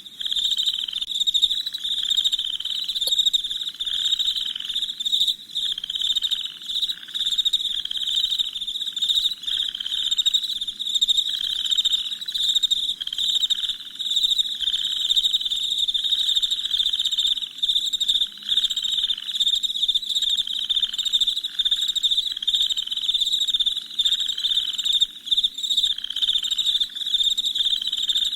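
Night chorus of crickets chirping continuously in fast, high trills. Under it, a lower pulsing call repeats in short bursts about once a second.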